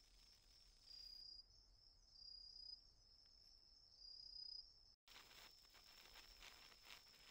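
Very faint, near-silent night sound: a steady high insect trill that swells three times in the first half. After a brief dropout about five seconds in, faint soft crackling from a Japanese senko hanabi sparkler throwing its branching sparks.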